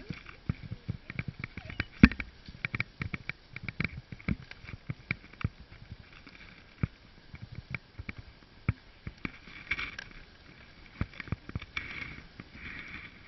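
A wooden dog sled running over a snow trail behind a dog team: irregular clicks and knocks from the sled frame and runners as it rides the bumps.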